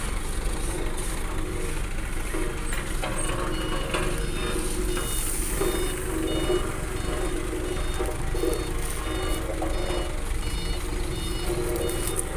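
Dump truck engine running steadily, with its reversing alarm beeping at an even pace from about four seconds in.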